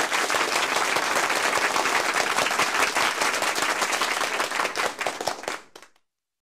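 Applause: many hands clapping steadily, fading out near the end.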